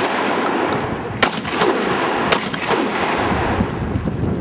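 Two 12-gauge pump shotgun shots about a second apart, each followed shortly by a fainter crack. Near the end comes low scuffling noise of people moving on foot.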